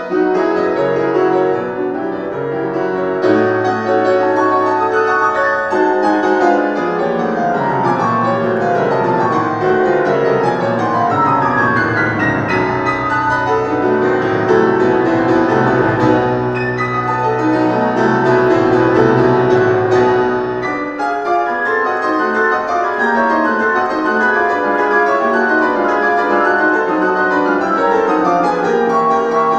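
Solo classical piano on a concert grand: dense, fast passagework with runs of notes sweeping up and down through the middle, over deep bass notes that drop away about two-thirds of the way in.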